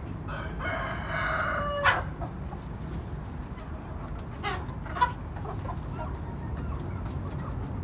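Chickens: one long, drawn-out call lasting about a second and a half, then a few short clucks about halfway through. Two sharp taps, one after the long call and one among the clucks, over a steady low rumble.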